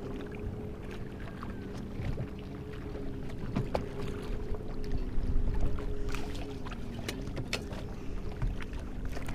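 Boat motor idling with a steady, slightly wavering hum, with a few light taps.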